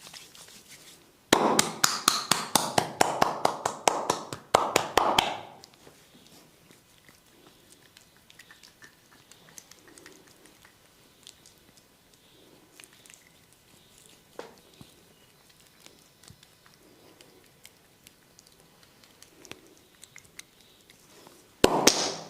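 A barber's hands slap and tap fast in a percussive massage, a loud run of about six strikes a second lasting about four seconds. Then come faint soft rubbing touches with one single tap. A short loud flurry of strikes follows at the very end.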